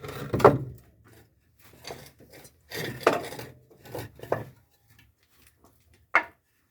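Timber boards being handled and set in place: a few irregular wooden knocks and short scrapes, with a sharp knock near the end.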